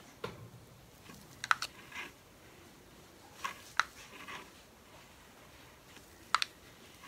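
Wooden craft stick clicking and scraping against a small plastic cup of acrylic paint: a few sharp clicks, about a second and a half in, near four seconds and again near the end, with softer scraping between them.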